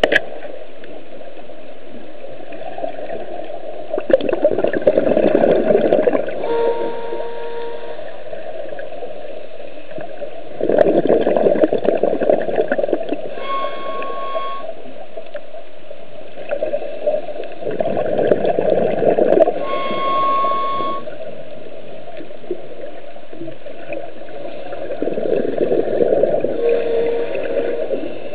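Scuba diver breathing through a squeaky regulator underwater: about four rushes of exhaled bubbles some seven seconds apart, each followed by a short squeaking tone from the regulator, some higher-pitched and some lower.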